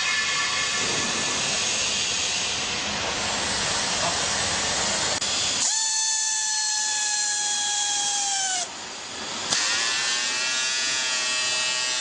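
Vertical hydraulic baler running: a steady hissing noise, then about halfway a loud high whine that sags in pitch and stops abruptly, followed shortly by a second, lower whine.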